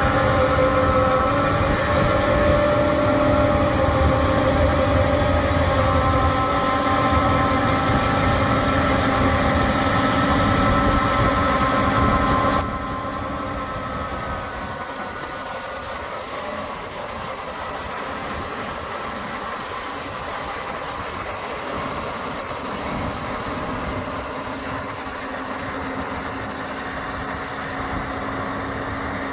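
Tractor diesel engine running under heavy load, driving a PTO-driven MeriCrusher forestry tiller whose rotor grinds through soil and roots. About 13 s in, the sound drops abruptly to a quieter, steadier engine noise.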